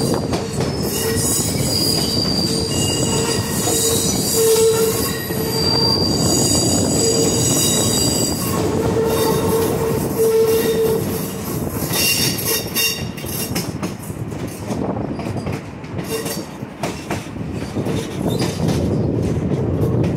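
Railroad car's steel wheels squealing against the rails as the train rolls along, over a steady rumble of the moving cars. The high squeals come and go through the first half, then give way to rattling and clicking of wheels on the track.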